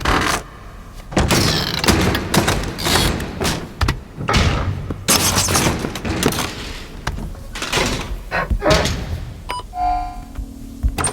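Cartoon film sound effects: a quick run of thuds, slams and whooshing sweeps, then about ten seconds in a short pitched tone followed by a steady low hum.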